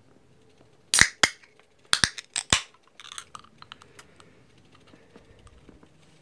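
Paintbrush working on a canvas panel: a handful of sharp taps and clicks about a second in and again around two seconds in, then a short scratchy brush scrub and a few faint ticks over quiet room tone.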